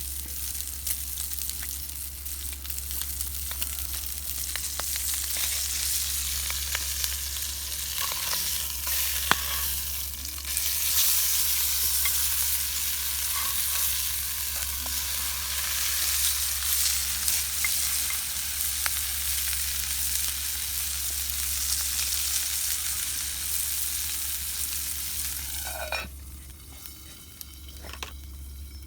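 Food sizzling in a frying pan over a wood campfire, a steady hiss with scattered crackles, which drops off sharply near the end.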